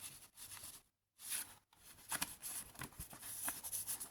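Paper rustling and crinkling as the pages and tags of a handmade junk journal are handled and turned, in irregular bursts with a brief dropout about a second in.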